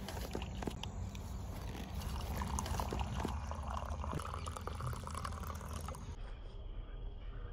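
A hot drink poured from a stainless steel vacuum flask into an enamel mug: a splashing stream from about two seconds in, thinning to a few drips near the end.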